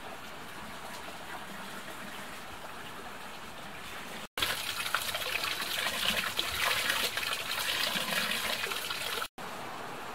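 Running water trickling and splashing into a small shallow pool, a steady rushing sound that cuts in about four seconds in and cuts off about five seconds later. Before and after it there is only a steady faint outdoor hiss.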